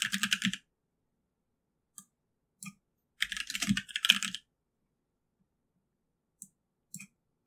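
Typing on a computer keyboard in short bursts: a quick run of keystrokes at the start, a few single keys, another run of keystrokes about three to four seconds in, then two lone key presses near the end.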